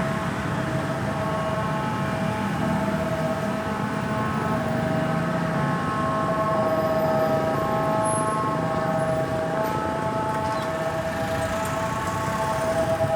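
Ambulance siren sounding steadily, one held tone with overtones, over road traffic noise.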